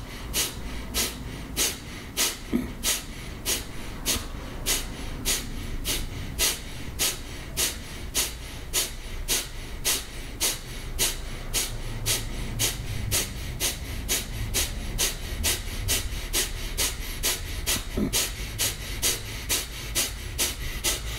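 Kapalabhati breathing: short, forceful exhalations through the nose in a steady rhythm of about two a second, each a sharp hiss, driven by snapping the abdomen in.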